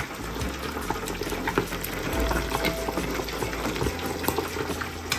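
Small sprat fish deep-frying in a wire basket of a deep fryer: the hot oil bubbles and crackles steadily with many small sharp pops.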